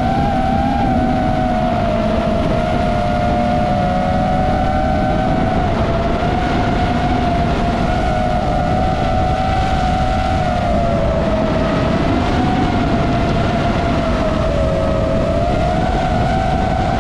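DJI FPV quadcopter's motors whining in fast forward flight, one steady pitch that wavers a little up and down with the throttle, over low rushing noise.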